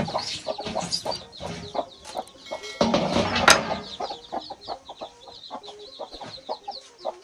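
Hen clucking with her newly hatched chicks peeping in quick high notes, and a louder crunching rustle about three seconds in as a knife cuts into a cabbage head.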